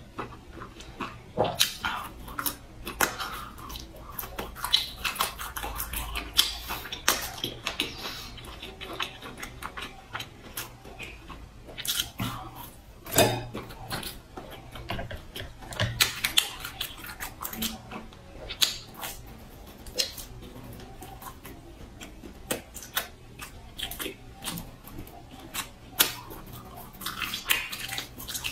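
Close-miked chewing and biting of grilled skewered sausages and meat: irregular wet smacks and crisp clicks.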